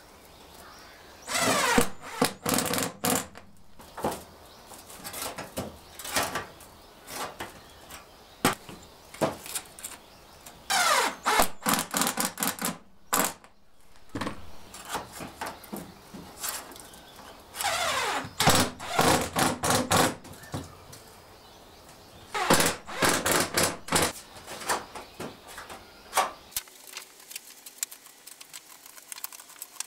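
Cordless impact driver driving sheet-metal screws into galvalume steel roofing in four short runs, each starting with a motor whine that falls in pitch, followed by rapid rattling impacts. Scattered knocks of tools and sheet metal between the runs.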